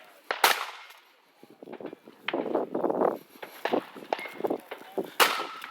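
Two shotgun shots, about five seconds apart, with a brief ringing tone after the second.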